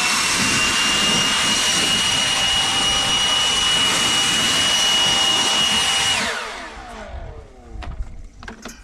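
DeWalt FlexVolt cordless blower running at full speed, a steady high whine over a rush of air, blasting packed sawdust out of a bandsaw mill's blade housing. About six seconds in the trigger is released and the fan spins down, its whine falling away.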